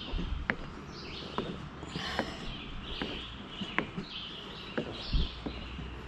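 Footsteps on a dirt forest trail, short crunches less than a second apart, with high calls repeating about once a second in the background.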